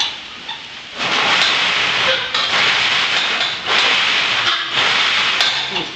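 Home-built giant robot running briefly with its legs disconnected, as a clearance check. Four hissing bursts of about a second each, with short pauses between them.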